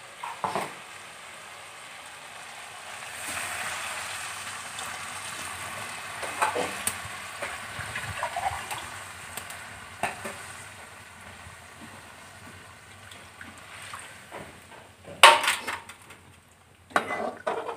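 Water just poured onto fried potatoes and masala in a hot aluminium pot, hissing and sizzling, while a metal spatula stirs and scrapes the pot with scattered clinks. A sharp metal clank about fifteen seconds in is the loudest sound, with more clanks near the end.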